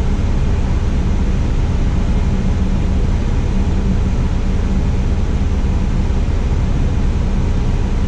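Diesel engine of a Tadano 180G-5 all-terrain crane running steadily, a low, even hum with no change in speed.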